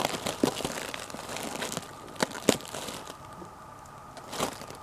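Shipping packaging being torn open and crumpled by hand: irregular crinkling and tearing with sharp crackles and snaps, the loudest a couple of seconds in.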